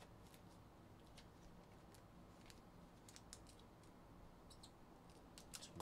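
Near silence: low room tone with faint, scattered light clicks and taps.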